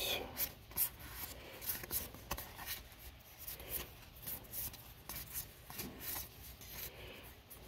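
Magic: The Gathering booster-pack cards being slid one by one across the stack in the hands: a run of soft, irregular card-on-card flicks and rubs.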